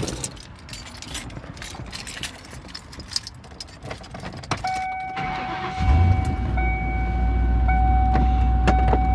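Keys jangling and clicking in the ignition of a 1994 Lincoln Town Car. About four and a half seconds in a steady warning tone sounds, and about a second later the 4.6-litre V8 starts and runs with a low steady rumble.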